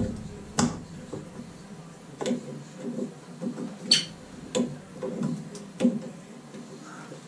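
Needle-nose pliers clicking and scraping on the metal horseshoe retaining pin of a Moen shower cartridge, working at a pin that is hard to pull. About six sharp metallic clicks, with the loudest, ringing one about four seconds in.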